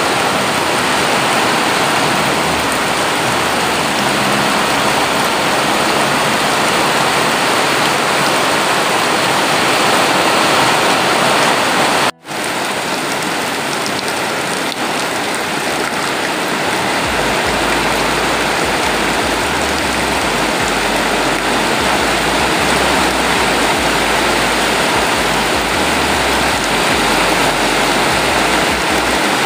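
Heavy rain pouring down, with a stream of roof runoff splashing into a brim-full plastic water barrel. The sound breaks off for an instant about twelve seconds in, then the downpour goes on.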